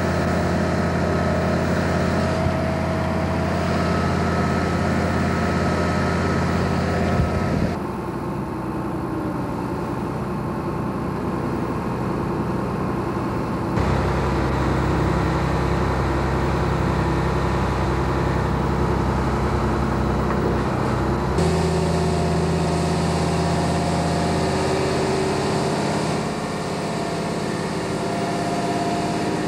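Heavy diesel engine of a mobile crane running steadily, a low hum with an even drone. Its tone changes abruptly three times, roughly a quarter of the way in, at the midpoint and about three-quarters in.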